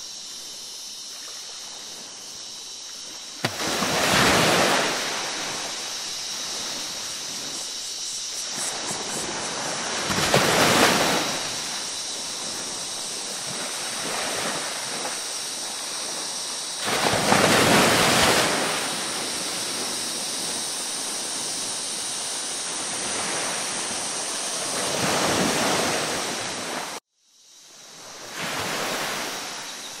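Ocean waves washing in over a steady rush of surf, a louder wave surging in every six or seven seconds. Near the end the sound cuts out abruptly for a moment and fades back in.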